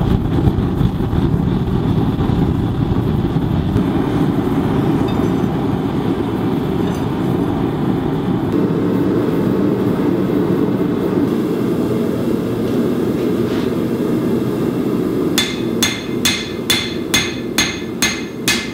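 Three-burner gas forge running with a steady low rush of burning gas. Near the end a hammer strikes hot 1075 steel on an anvil about eight times, roughly two and a half blows a second, forging in the blade's rough bevel.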